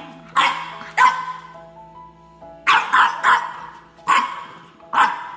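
French bulldog barking in short, sharp barks, about seven in all, with a pause of a second or so near the middle. Background music with held notes runs underneath.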